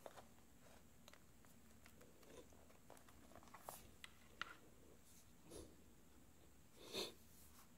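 Faint scattered taps and clicks of fingertips pressing a replacement glass digitizer panel down onto an iPad's frame, with a short louder rub of hands on the glass near the end.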